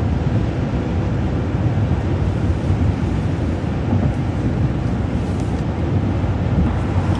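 Steady road and engine noise inside a transit bus cruising on the interstate at highway speed.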